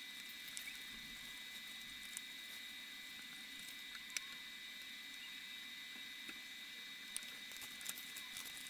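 Quiet room tone: a steady hiss with a faint high steady whine, broken by a few small clicks, the sharpest about four seconds in, as gloved hands shift the steel saw plate on the board between sanding strokes.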